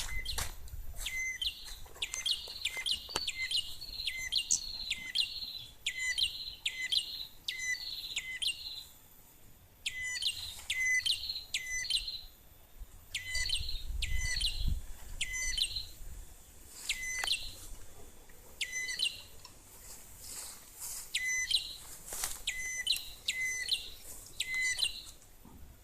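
A small songbird calling over and over, about once a second in runs with short pauses. Each call is a short low note followed by a quick higher flourish. A brief low rumble comes about halfway through.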